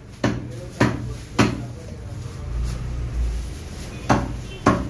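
Meat cleaver chopping beef on a wooden tree-stump block: three sharp chops about half a second apart, a pause, then two more near the end.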